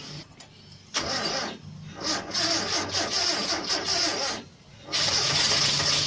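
Mitsubishi Colt T120 engine being cranked in short tries that stop briefly twice, then catching and running steadily about five seconds in.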